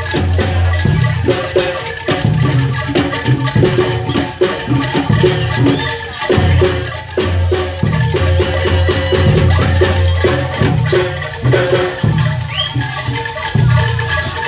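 Jaranan gamelan music: low drum and gong beats keep a steady driving rhythm under ringing metallophone notes and shaken percussion.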